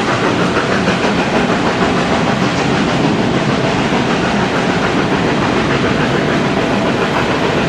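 Rake of Pullman coaches rolling past at speed, their wheels on the rails making a loud, steady clatter and rumble.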